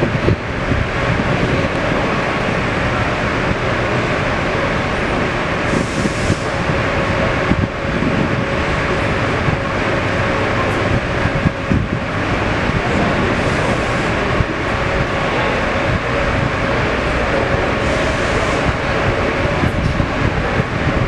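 Steady machinery drone with a constant hum, over a rumbling noise bed; short bursts of hiss come and go a few times.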